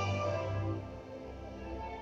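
Instrumental ballet music with held, sustained notes, growing softer about a second in.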